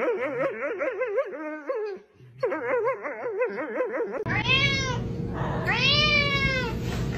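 A domestic cat meowing twice, two arched calls that rise and fall, the second one longer. Before them, a high call whose pitch wavers quickly breaks off and starts again over the first few seconds.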